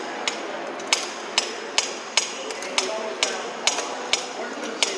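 Hand pump on a concrete pressure-method air meter being stroked to pump the air chamber up to its initial pressure, with a sharp metallic click at each stroke, about two a second.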